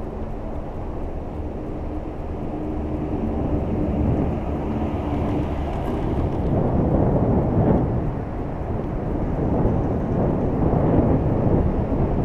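Gondola cabin running along its haul cable: a steady low rumble of ride noise heard from inside the cabin, with a faint hum at first. The rumble grows louder and rougher about halfway through as the cabin nears a pylon.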